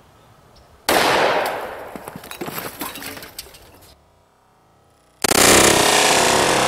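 A single shot from a Springfield .45 ACP pistol about a second in, sharp and loud, dying away over about three seconds with a ragged tail of smaller crackles. Near the end a loud, steady rushing noise starts abruptly.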